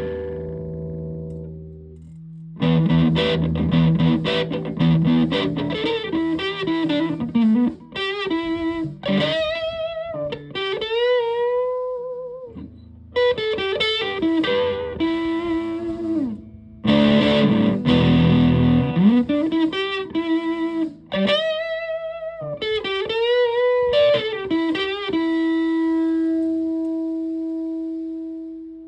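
Electric guitar with humbucker pickups played through a heavily modified Buzzaround fuzz pedal, distorted. A chord dies away, then comes a riff of chugging chords and lead lines with wide string bends and vibrato, ending about three seconds from the end on one held note that rings out.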